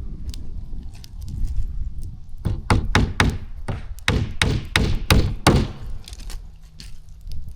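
Hammer driving nails into a plywood floor on wood framing: a quick run of about a dozen sharp knocks, roughly three to four a second, from about two and a half to five and a half seconds in.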